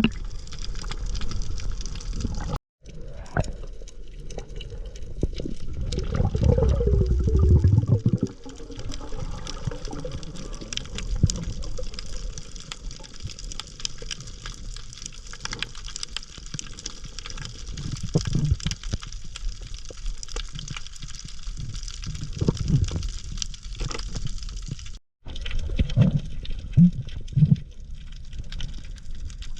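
Sea water sloshing and bubbling around the camera during a dive, with scattered clicks and crackle throughout. The sound breaks off briefly twice, once near the start and once near the end.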